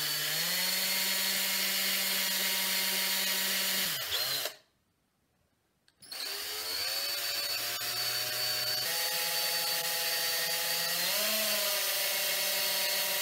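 DeWalt 18V cordless drill motor whining steadily as it bores a hole into a wooden dowel handle. It stops about four seconds in, falls silent for about a second and a half, then runs again to the end, its pitch wavering briefly as the bit loads up near the end.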